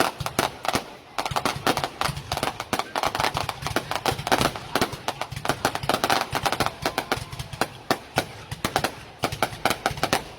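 Aerial fireworks going off in rapid succession: dense crackling bangs and pops, many a second, with a brief lull about a second in.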